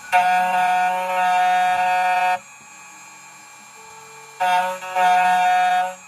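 2m2tank CNC key cutting machine milling a brass key blank: a loud, steady whine for about two seconds, dropping to a quieter hum, then the whine again for the last second and a half.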